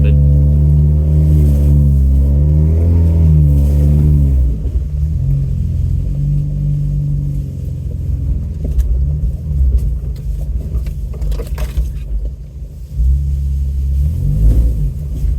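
Truck engine pulling at low speed on a rough dirt road, its pitch rising and falling with the throttle for the first few seconds before it eases off. Through the quieter middle stretch there are a few sharp knocks, and the engine pulls steadily again near the end.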